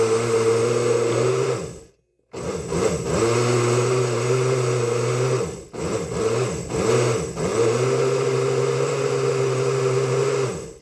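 Countertop blender motor pulsing as it churns cream into butter, the butter already broken into clumps in the buttermilk. It runs steadily, cuts out for a moment about two seconds in, starts again, dips briefly around the middle and stops near the end.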